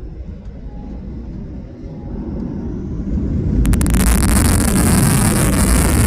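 Boeing 737 jet engines: a low rumble, then about halfway in a sudden step up to a much louder, steady noise with a strong hiss.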